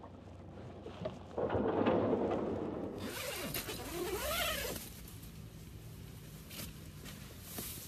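A tent door zipper being drawn open in one long run of rising and falling zips of about two seconds, starting about three seconds in. Before it come a low hum and a louder rush of noise.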